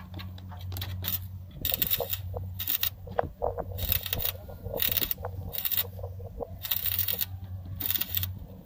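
Stick welding on the steel cutting header of a Kubota combine harvester: the arc crackles and sizzles in short bursts, striking and stopping several times, over a steady low hum.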